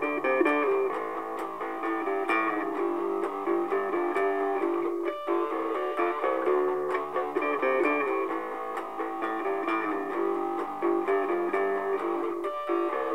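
Instrumental guitar music, plucked strings, with no singing.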